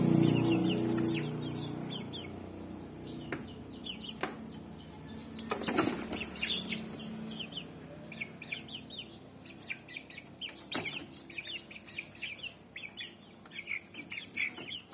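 Young Rhode Island Red chickens and chicks peeping rapidly, many short high falling peeps one after another, with low clucking at the start that fades within about two seconds. A brief flurry of wing flapping comes about six seconds in, with a few knocks scattered through.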